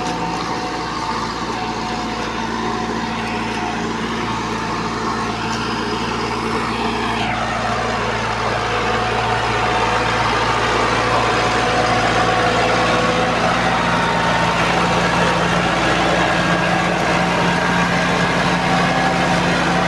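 Combine harvester running steadily under load, an even engine hum with several steady tones. About seven seconds in, a tone falls in pitch, and from there on the machine runs somewhat louder.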